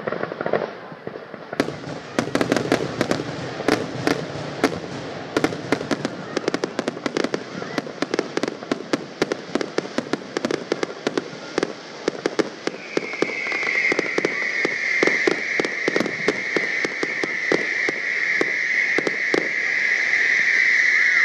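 Fireworks going off in a rapid barrage of bangs and crackling pops, many a second. About thirteen seconds in, a steady high whistle starts and holds, sinking slightly in pitch.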